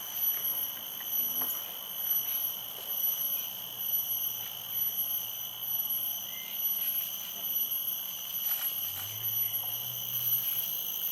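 Insect chorus: a steady, high-pitched shrill made of several even tones that swells and fades in a regular rhythm.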